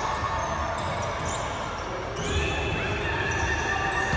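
Basketball bouncing on a gym court during a game, over steady hall background noise, with a few thin high squeaks from about two seconds in.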